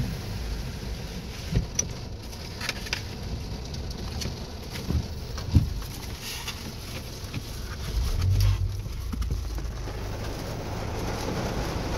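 Steady low rumble heard from inside a car in heavy rain, with a few scattered knocks. A louder low rumble swells about eight seconds in.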